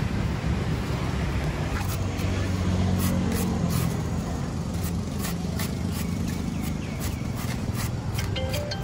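Hand peeler scraping strips of skin off an Asian pear, short strokes coming about twice a second from a few seconds in, over a steady low hum.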